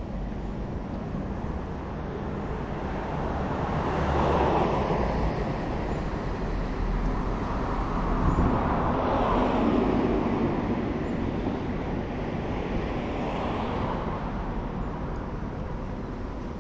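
Street traffic: vehicles passing one after another, the noise swelling and fading three times over a steady background of street noise.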